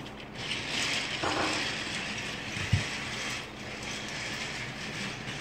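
Battery-powered toy train whirring along plastic track, its small motor and gears running steadily after it is switched on. One short thump near the middle.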